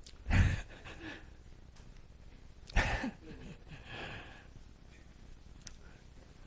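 Two short, loud breaths blown close to a headset microphone, about two and a half seconds apart, like a man's sniffs or sighs.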